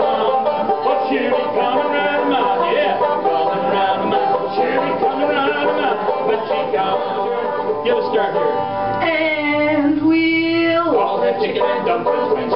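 Banjo played in a lively bluegrass style, a run of quick plucked notes. About nine seconds in a long held note with many overtones joins in over the banjo and slides down in pitch as it ends.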